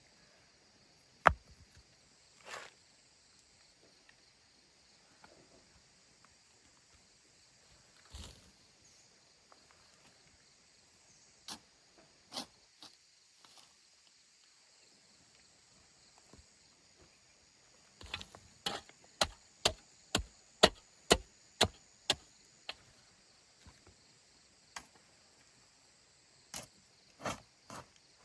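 Sharp knocks, like a tool striking wood or earth: scattered single blows, then a quick run of about ten strikes at roughly two a second in the second half, over a steady high hiss of insects.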